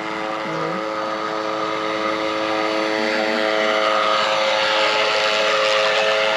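Brushless (BLDC) motor of a large RC boat running at steady speed, a constant high-pitched whine with a rushing hiss underneath that grows a little louder in the second half.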